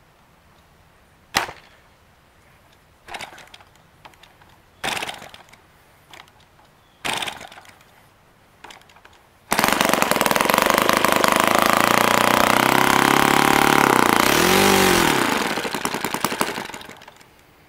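YS F-120 four-stroke glow model engine being hand-started by flipping its propeller: it fires a few single pops, catches about halfway through and runs loud and fast, wavers in pitch, then sputters and dies as the last fuel left after the fuel was cut off burns away.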